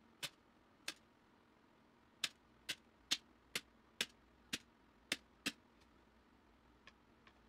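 Manual staple gun firing staples through carpet-like fabric into a wooden board: ten sharp snaps, two in the first second, then eight in quick succession about two a second, with a couple of faint clicks near the end.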